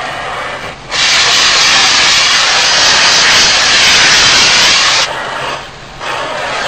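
Oxy-acetylene cutting torch hissing as it cuts through an old floor-pan fastener. A much louder rush of hiss starts about a second in and lasts about four seconds, then drops back to a softer hiss.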